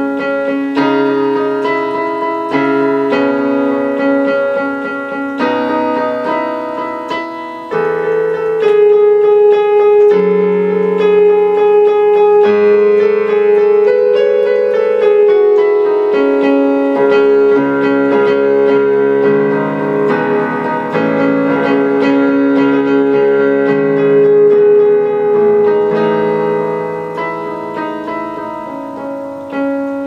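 Instrumental keyboard music in a piano sound: sustained chords that change every second or two, getting louder about eight seconds in, where a long held note enters.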